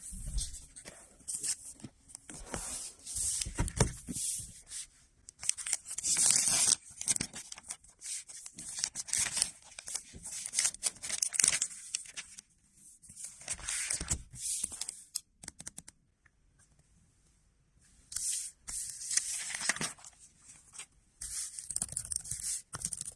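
Packaging being handled and torn open: irregular bursts of tearing and rustling, with a quieter pause about two-thirds of the way through.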